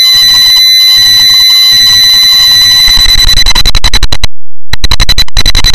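Deafeningly loud, distorted jump-scare noise: a harsh clipped blare with a steady shrill tone over it, which starts stuttering rapidly about three seconds in, drops out for a moment at about four seconds, then comes back.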